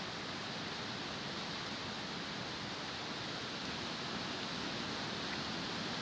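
Rushing water, a steady even rush that grows slightly louder near the end.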